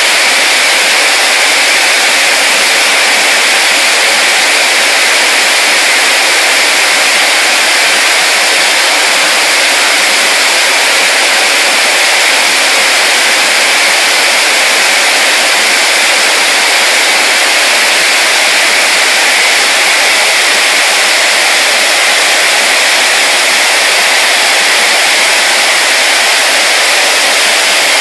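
Steam rushing through a power plant's piping during a steam blow, the line being blown clean at high velocity: a loud, steady hiss that does not change.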